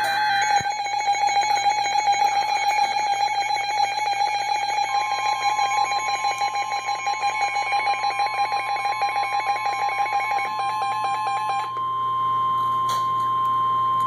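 NOAA weather alert radios going off for a tornado warning: a rapidly pulsing electronic alarm beep, joined about five seconds in by the broadcast's steady single-pitch warning alarm tone. The beeping stops near the end while the steady tone keeps sounding.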